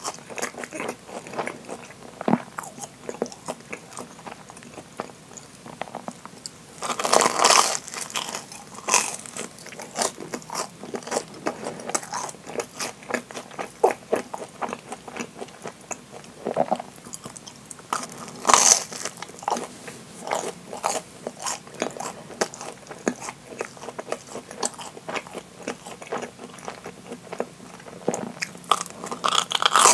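Close-miked chewing of deep-fried, breadcrumb-coated Japanese curry bread, the crisp fried crust crackling between the teeth. Louder crunching bites come about a quarter of the way in, just past the middle, and again at the end.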